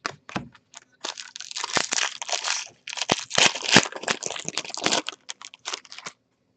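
Crinkling and rustling as trading cards and their foil packaging are handled, a dense run of crinkles and small clicks from about a second in until shortly before the end.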